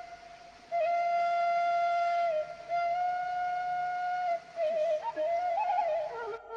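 Background music: a flute-like melody of long held notes, with a faster ornamented run near the end.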